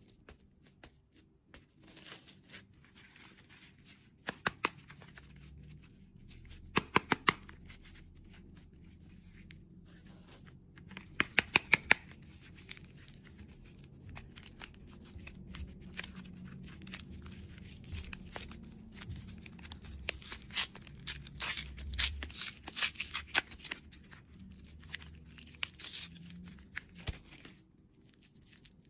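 Close-up handling and tearing of crinkly candy or toy packaging, with several quick clusters of sharp clicks and a denser run of clicks and rustling in the second half.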